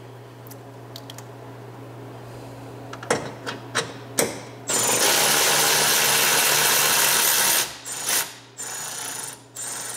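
Cordless power tool driving a 10 mm socket on an extension to remove a grille bracket bolt: a few sharp clicks as the socket is fitted, then the tool runs steadily for about three seconds, followed by three shorter runs near the end.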